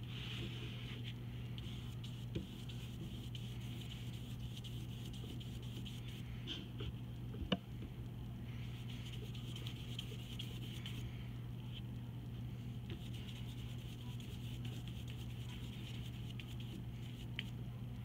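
Paintbrush bristles scrubbing yellow paint onto paper in repeated strokes, a soft scratchy brushing that comes and goes, over a steady low hum. Two sharp taps, a small one about two seconds in and a louder one about seven and a half seconds in.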